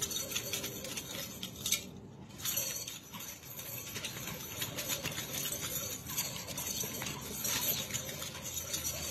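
Chain of a pair of nunchucks clinking and rattling over and over as they are spun and swung.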